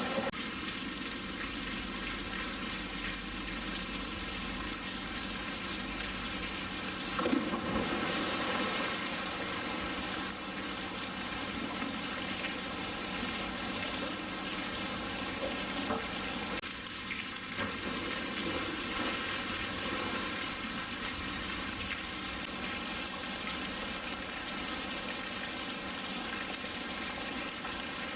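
Steady rushing water noise, with a brief louder moment about seven seconds in.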